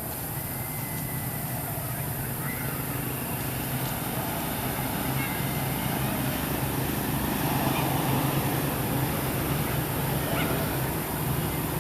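A steady low engine hum that slowly grows louder, with a few faint short high chirps over it.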